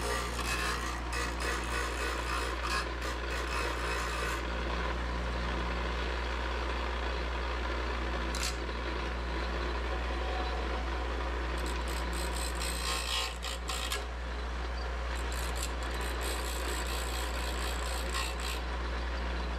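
Bench grinder running with a steady hum while a small metal piece held in pliers is pressed to the wheel in spells, giving a rasping grinding hiss over the first few seconds, briefly about eight seconds in, and again through much of the second half.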